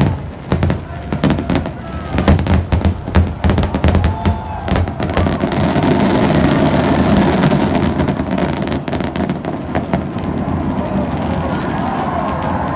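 Fireworks finale: aerial shells bursting in rapid, irregular bangs that give way, about five seconds in, to a dense, continuous crackling of glittering stars.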